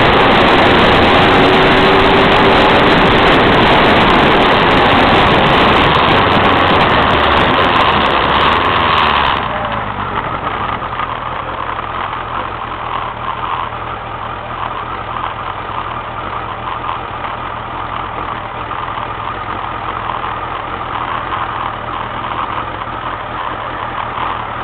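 Inside a car: steady road and tyre noise while driving. About nine seconds in it drops abruptly to a quieter, steady engine idle with the car standing still.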